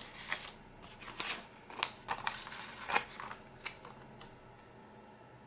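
Paper sticker sheets rustling and crinkling as stickers are peeled and pressed onto a planner page, in about seven short, irregular crackles.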